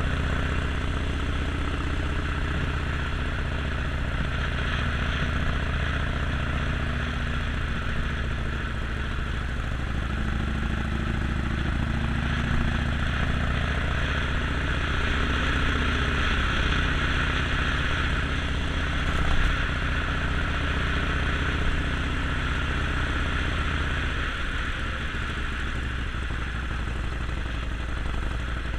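Harley-Davidson Sportster Forty-Eight's air-cooled V-twin engine running steadily, with a constant rushing noise over its low note.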